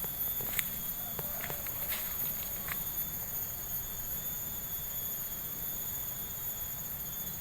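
Chorus of insects shrilling, several high-pitched tones held steady without a break, with a few light steps in the first few seconds.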